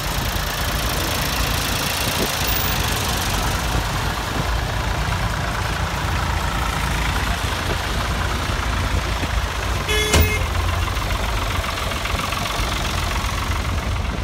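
Vintage farm tractor engines running steadily as the tractors pull away and drive past one after another. A short tonal beep sounds about ten seconds in.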